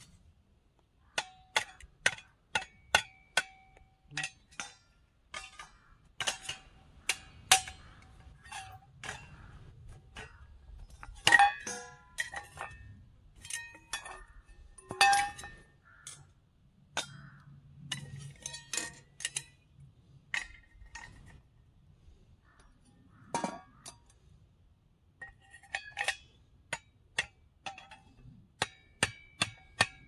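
Metal camping gear clinking and clanking as it is handled: many sharp metallic taps, each with a short ringing tone, coming irregularly, two louder clanks in the middle and a quicker run of taps near the end.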